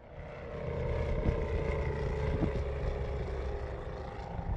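Piston engine of a light aircraft running at a steady speed, fading in from silence at the start.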